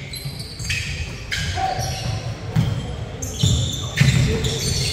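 Live basketball play: a ball bouncing on the court, several short high squeaks, and players' voices.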